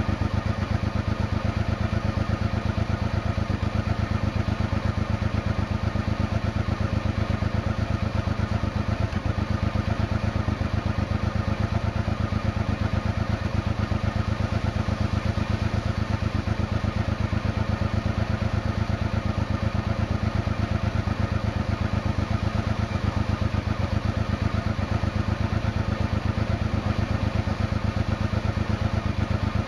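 1992 Honda XRV750 Africa Twin's V-twin engine idling steadily, with an even exhaust beat and no revving.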